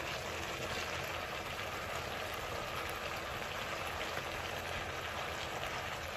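Stir-fried sausage and vegetables sizzling steadily in a hot wok as cooked rice is spread over them.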